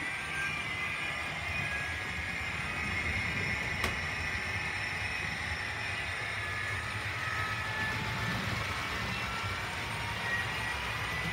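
Hornby OO gauge Class 67 model diesel locomotive with a TTS sound decoder running along the track hauling a train of Pullman coaches: the small onboard speaker plays a diesel engine sound over the steady rumble of the motor and wheels on the rails. A single sharp click about four seconds in.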